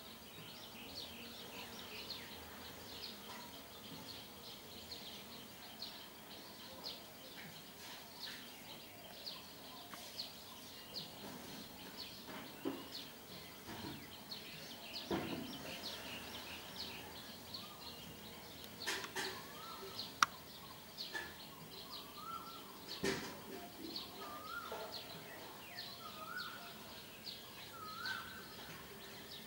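Outdoor background of small birds calling: short high chirps repeat steadily throughout. About two-thirds of the way in, a second bird joins with short rising calls, and there are a couple of sharp clicks.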